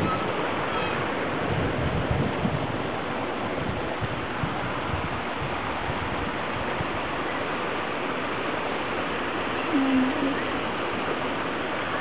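Stream water rushing and splashing over rocks and a low concrete weir: a steady, even rush. A brief voice sound about ten seconds in.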